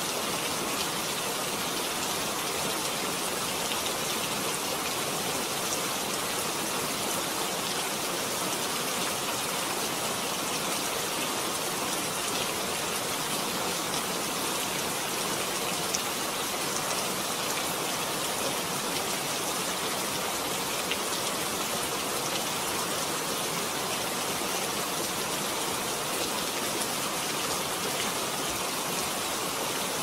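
Steady rain falling: an even, unbroken hiss with a few faint drop ticks.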